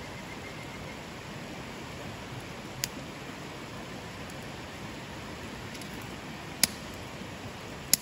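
Steady rush of a shallow river flowing over stones, with three short sharp knocks: one about three seconds in and two louder ones near the end, as small bottles are set down on the camp table.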